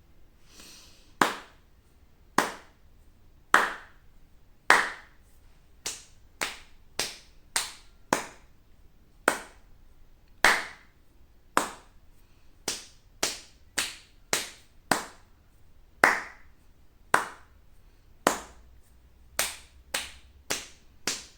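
Body percussion in a steady repeating pattern: four slow hand claps a little over a second apart, then four quicker, quieter slaps on crossed arms, then back to the claps.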